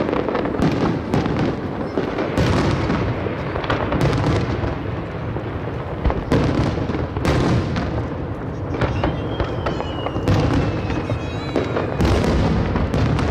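Aerial fireworks bursting one after another, a dense run of booms and crackles. About two-thirds of the way in, a thin high whistling tone slides slowly down for a few seconds.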